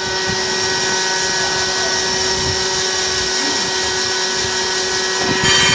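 Grinding machine's abrasive wheel grinding a steel shaft, a steady hissing whine over the machine's hum. The grinding grows louder and harsher near the end.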